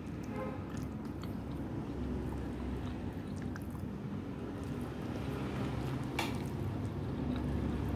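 Eating sounds: chewing, with sharp clicks of a utensil against the plate, the loudest about six seconds in, over a steady low rumble.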